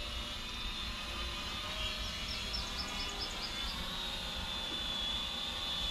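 Syma X500 quadcopter drone flying overhead, its propellers giving a steady high-pitched whine, with wind rumble on the microphone. About two seconds in, a bird gives a quick run of about eight short chirps.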